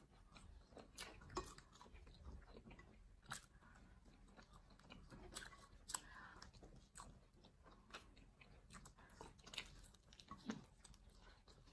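Two people chewing pizza, faint, with irregular wet mouth smacks and sharp little clicks as they bite and chew.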